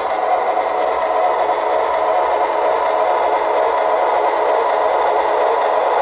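MTH RailKing O-gauge Illinois Terminal PCC streetcar model running along three-rail track: the steady running noise of its electric motor, gearing and wheels on the rails.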